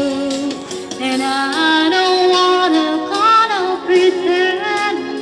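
A woman singing a wordless melodic phrase over backing music, her pitch sliding down a little past the middle.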